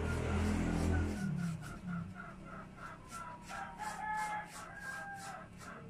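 A rooster crows once, a long held call from about three and a half to five seconds in. A louder low drone fills the first second and then stops, and faint repeated chirps run underneath.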